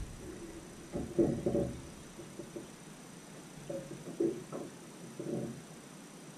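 A few short, faint murmured vocal sounds from a man, scattered between quiet stretches.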